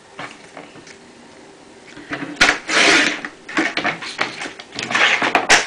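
Sliding-blade paper trimmer cutting watercolor paper, then the cut strip and sheet being slid and handled across the trimmer base. The first seconds hold only small clicks; a long noisy swipe comes about two and a half seconds in, followed by several shorter scrapes and rustles.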